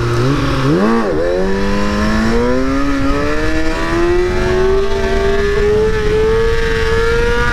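Kawasaki sport bike engine blipping quickly about a second in, then revving steadily higher for several seconds as it accelerates with the front wheel up. This is a power wheelie being chased out on the throttle.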